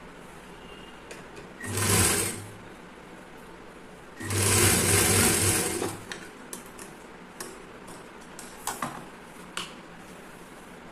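Industrial sewing machine stitching in two short runs, the second longer at about two seconds, while a folded hem strip is sewn down. Faint clicks and rustles of the fabric being handled follow.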